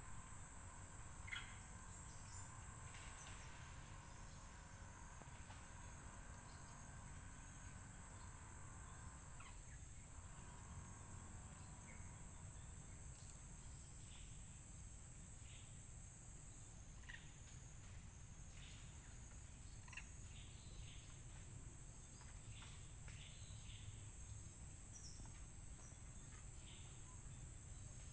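Steady high-pitched drone of insects that eases slightly about two-thirds of the way through, with scattered short bird chirps over it.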